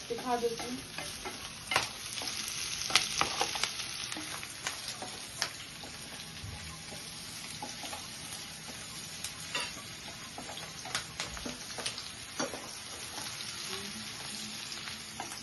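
Chopped onions sizzling in hot oil and butter in a frying pan as they fry to light brown, stirred with a wooden spatula. A steady frying hiss runs throughout, broken by scattered clicks and scrapes of the spatula against the pan, a few louder ones about two to three seconds in.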